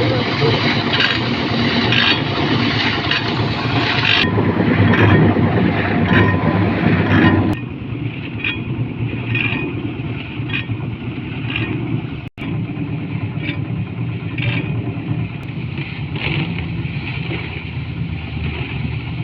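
Engine-driven concrete mixer running steadily, with a regular knock or slap about once a second as the mix tumbles in the turning drum. The sound drops in level abruptly about seven seconds in.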